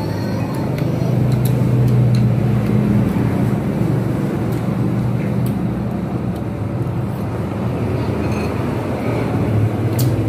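Steady low hum of a motor, like nearby road traffic, with a few light clicks of spoons against bowls.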